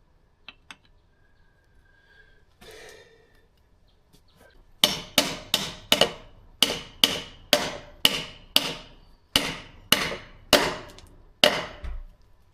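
About fifteen hammer blows on metal, roughly two a second, each with a short metallic ring, tapping a freezer-chilled pivot bearing into its housing on a BMW R1200GS's rear end.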